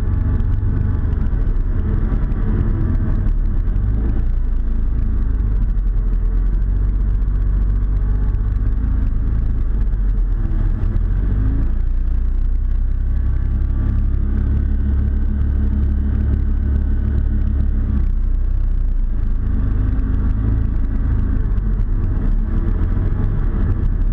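Slider XL hovercraft's engine and fan running steadily under way, heard from on board, the pitch shifting slightly now and then with the throttle.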